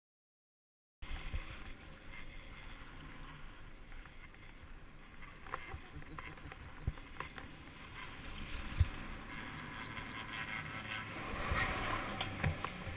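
Silent for the first second, then the ride on a chairlift: a steady rumble of the moving lift and wind on the microphone, with scattered clicks and knocks and one sharp knock a little past the middle. The sound grows louder near the end as the chair runs into the top lift station.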